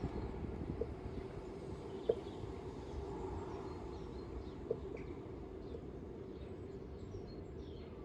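Garden ambience: a steady low background rumble with faint, scattered chirps of small wild birds. A few sharp taps stand out, the loudest about two seconds in and again near five seconds.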